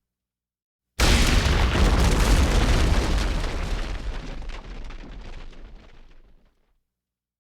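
A loud rumbling roar cuts in suddenly about a second in and fades away over about five seconds, then stops.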